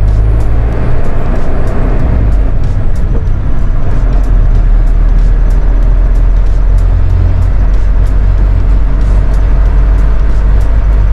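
Mitsubishi Fuso Rosa minibus engine and road noise heard from inside the driver's cab while driving at a steady speed, a loud, even low rumble.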